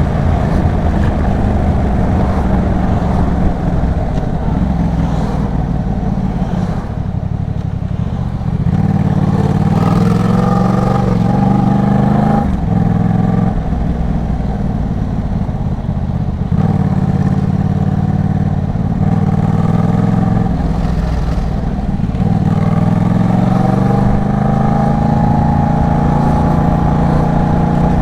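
Yamaha MT-07's parallel-twin engine through an Arashi aftermarket exhaust, ridden hard: the engine note climbs again and again under acceleration, with short breaks about twelve and sixteen seconds in, and a long rise toward the end.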